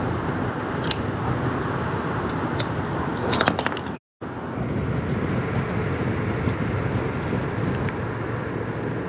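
Steady background noise with a few light clicks of handling, a small cluster of them about three and a half seconds in, and a brief dead dropout just after.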